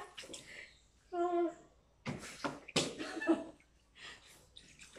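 Water splashing in a plastic tub as a beagle is washed, with a few sharp splashes between two and three and a half seconds in and brief vocal sounds.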